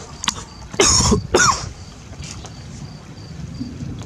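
A person coughing twice in quick succession, about a second in.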